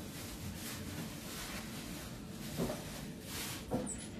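Soft rustling and handling noise from hands working at a kitchen counter, with two light knocks in the second half.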